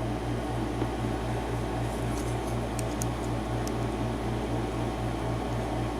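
Steady machine hum, like a fan or air-conditioning unit, pulsing about four times a second over a constant lower drone, with a few faint light clicks near the middle.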